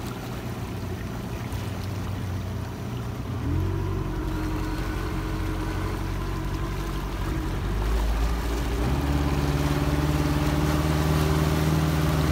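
Speedboat's outboard motor running as the boat gets under way, its pitch stepping up twice as the throttle is opened, with water rushing past the hull.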